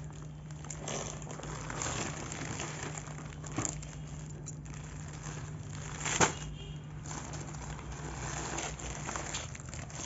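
Clear plastic garment packets and a courier mailer crinkling and rustling as they are handled and laid down. A sharper crackle comes about six seconds in.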